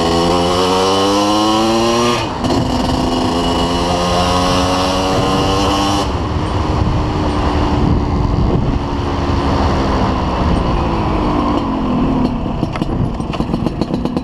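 Yamaha two-stroke motorcycle engine accelerating: the pitch rises, drops at a gear change about two seconds in, and climbs again. It then eases off and falls as the bike slows, running unevenly at low speed near the end. It pulls smoothly through the mid-range, which the rider credits to the carburettor's angle to the cylinder.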